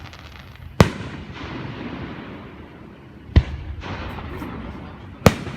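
Fireworks display: three loud bangs about two and a half seconds apart, each trailing off in an echoing rumble, over a steady low background noise.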